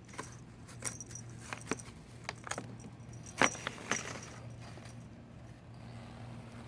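A cat pouncing and scrabbling in a paper bag: a run of crisp paper crackles and scratches over the first four seconds, the loudest about three and a half seconds in, then it goes quiet.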